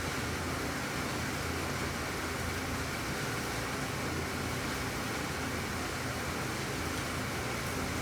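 Steady rain falling, a constant even hiss with no single drops or gusts standing out.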